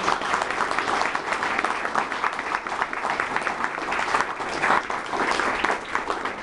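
Audience applauding: a roomful of people clapping their hands, dense and continuous.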